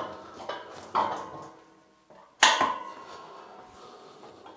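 Heavy steel welding table being rolled about on its heavy-duty swivel casters, with two sharp metallic knocks that ring briefly, one about a second in and a louder one about two and a half seconds in.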